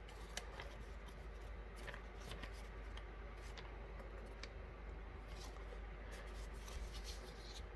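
Faint rustling, rubbing and scattered small clicks of packaging and parts being handled.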